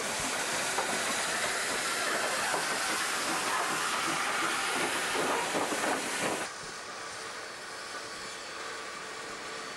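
Loud, steady hiss of steam from a South African Railways GMAM Garratt steam locomotive as it rolls past. It cuts off abruptly partway through, giving way to the quieter, steady running of a diesel locomotive's engine.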